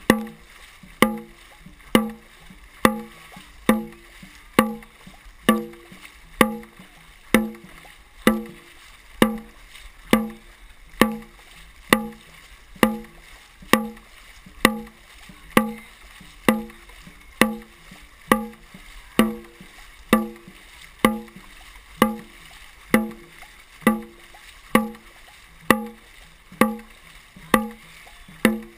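Dragon boat drum beaten in a steady rhythm, a little under one beat a second, each hit ringing with a low tone. The drum beat sets the paddlers' stroke rate.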